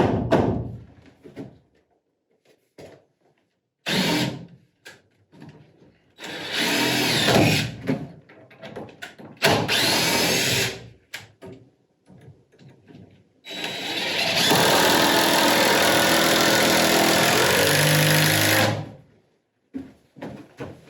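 Power drill running in several bursts: a short run about four seconds in, two runs of a second or two each, then one long steady run of about five seconds that stops near the end.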